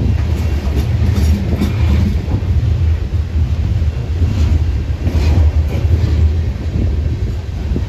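Coal train's loaded-style open-top steel coal cars rolling past close by: a steady low rumble of steel wheels on the rails, with brief higher-pitched metallic scraping noises a few times.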